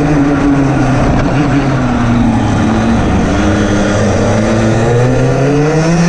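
Rotax DD2 kart's 125 cc two-stroke single-cylinder engine, heard onboard. Its revs ease off over the first couple of seconds, then climb steadily for the last three seconds as it accelerates.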